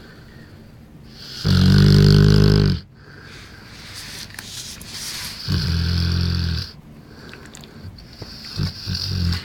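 One-year-old bullmastiff snoring in its sleep: two long, loud snores about four seconds apart, with softer breathing between them and a few short, quicker snores near the end.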